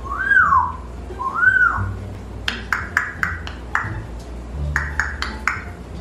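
African grey parrot giving two short whistled notes, each rising then falling, then a quick run of sharp clicks over the next few seconds, with a low hum underneath.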